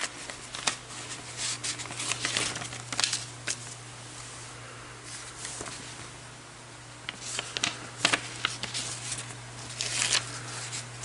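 Paper rustling and crinkling with light clicks and taps as sticker paper is handled. The sound comes in two spells with a quieter pause of a few seconds between them, over a steady low hum.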